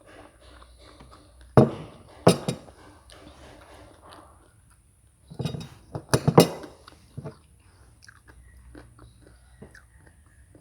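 A person chewing and biting food close to the microphone, likely noodles with stink beans, with loud sudden crunches or knocks about one and a half seconds in, twice more shortly after, and a cluster around the middle.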